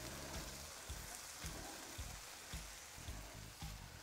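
Oil-coated asparagus and potatoes sizzling faintly on a hot Blackstone steel griddle: a steady hiss with scattered small crackles.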